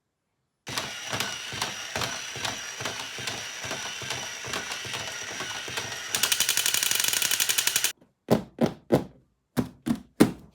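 Electronic sound effects from a battery-powered toy gun. About a second in, quick clicking starts over steady high electronic tones. After about six seconds it turns into a fast buzzing rattle for about two seconds, then five or six separate short shot sounds.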